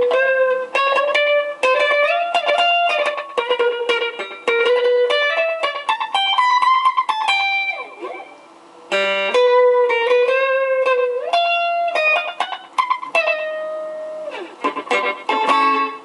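Electric guitar played through an Ibanez Soundtank digital delay pedal: a melody of single picked notes with slides between pitches. The playing dips briefly about halfway, then resumes.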